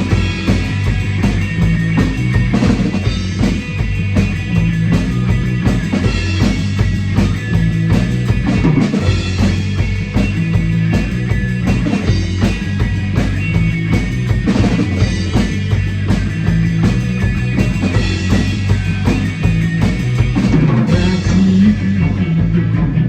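Rock song playing: a full drum kit keeping a steady beat over bass and electric guitar.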